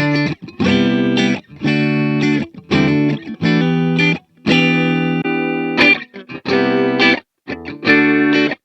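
Electric guitar played through a pedalboard with distortion, strumming chords in short stabs that stop sharply between them, with one chord held for over a second near the middle.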